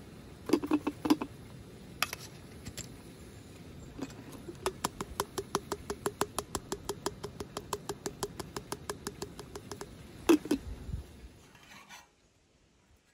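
A few sharp taps as ground coffee is knocked out of a metal cup into a pour-over dripper, then a fast, even rattle of clicks, about seven a second, as the dripper is shaken on its glass server to level the grounds, ending in a single loud knock.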